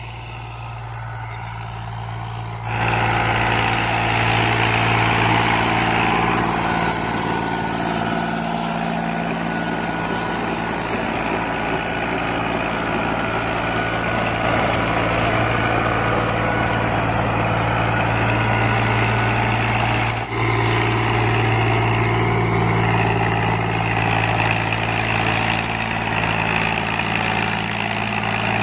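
Farm tractor's diesel engine running steadily under load while it drives a rear-mounted rotavator through the soil. It grows louder about three seconds in as the tractor comes close.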